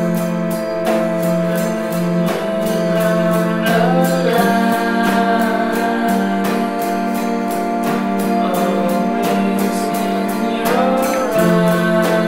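Music: a held drone chord over a quick, steady tick, with a wavering sung line coming in about four seconds in and dropping out near the end.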